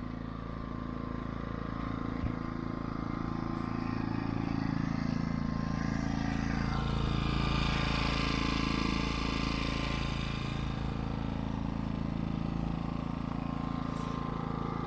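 Mac Afric 1.8 kW inverter generator running steadily at low revs with its fuel-saver (eco throttle) switch on, a quiet, even engine hum. A hissing noise swells and fades in the middle.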